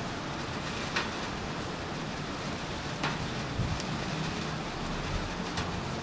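Gentle rain falling steadily, with a few sharper drip ticks, the clearest about a second in and three seconds in, over a low rumble.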